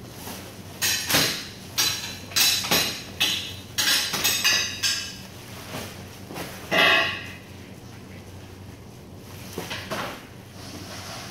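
Woven plastic sack rustling and crinkling as it is gripped and tied, in a quick run of short sharp rustles, then one louder scrape about seven seconds in and a few fainter rustles near the end.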